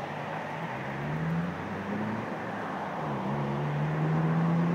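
A train running, with a low motor hum that rises in pitch several times over a steady running noise, strongest in a long rise over the last second and a half.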